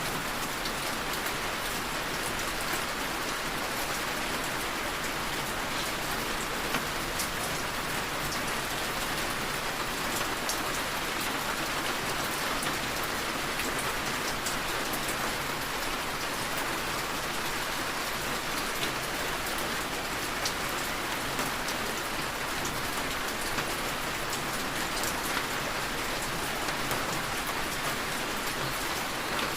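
Steady rainfall, with scattered drops ticking among the even hiss of the rain.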